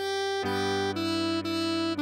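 Alto saxophone melody played slowly, each note held about half a second: a high note, then a step down to lower held notes, over a steady chord accompaniment that changes about half a second in.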